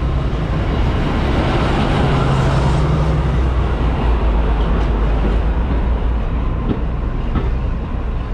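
Class 52 'Western' diesel-hydraulic locomotive pulling slowly into the platform, its engine note a steady low drone that drops away about three seconds in as it passes, then the coaches rolling by with a low rumble and a few wheel clicks over the rail joints.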